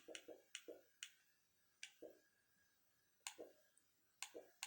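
Faint, unevenly spaced clicks of a computer mouse, about a dozen of them, some in quick pairs, as menus are clicked through.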